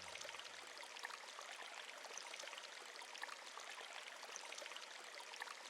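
Faint running water of a stream, an even trickling hiss with no breaks.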